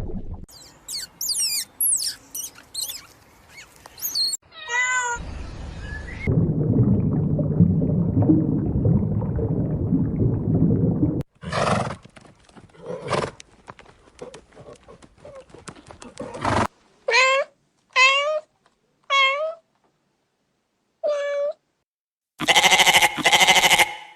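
A domestic cat meowing: four short meows about a second apart in the second half, alongside other brief animal clips.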